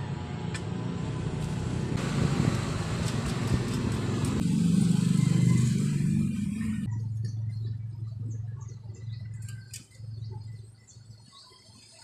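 A motor vehicle engine running, loudest about five seconds in, then dropping suddenly to a quieter low hum with a few light clicks.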